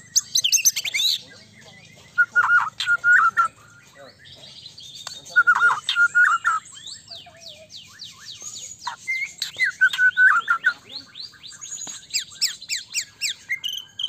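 White-rumped shama (murai batu) singing in bursts of loud, varied whistled phrases, with long runs of quick falling high notes in the second half.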